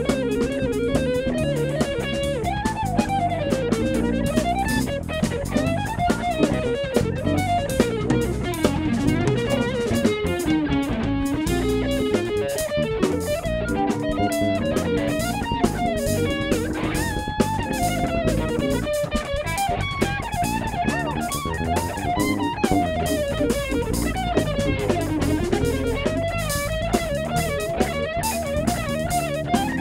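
Live funk band playing: an electric guitar plays a lead line with gliding, bent notes over a drum kit.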